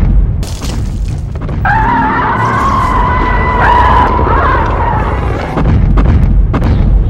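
Dubbed monster-battle sound effects: heavy booming crashes, with one long high-pitched cry held for about three seconds in the middle.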